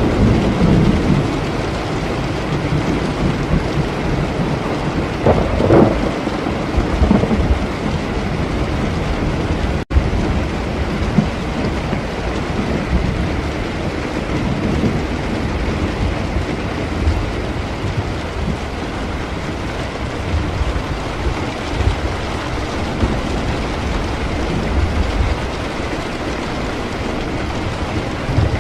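Steady heavy rain with low rolling thunder, swelling near the start and again around six seconds in. The sound drops out for an instant about ten seconds in.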